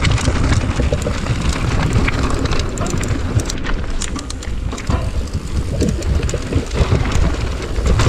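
Mountain bike riding fast down a loose gravel and rock trail: tyres crunching over stones and the bike rattling and clicking over the rough ground, under heavy wind buffeting on the microphone.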